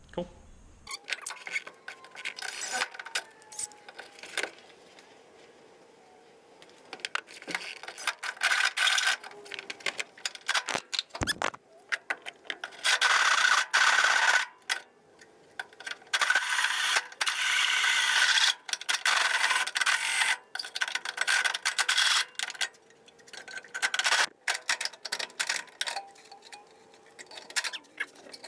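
Small hand-held grinder with a sanding disc working bare car-body sheet metal, starting and stopping many times with a steady motor whine under the rasp of the disc. The grinding starts about seven seconds in, after quieter handling sounds.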